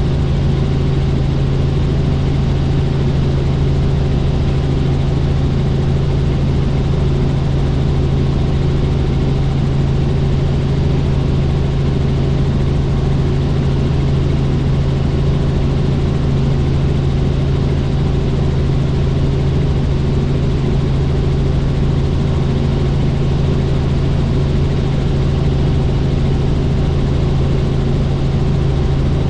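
Helicopter in flight: loud, steady engine and rotor noise with a constant low hum.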